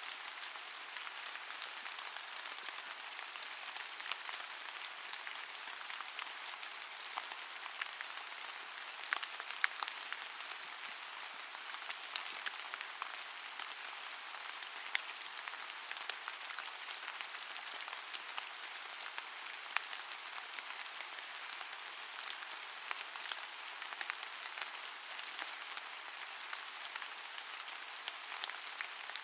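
Steady rain with the sharp ticks of individual drops falling on a surface.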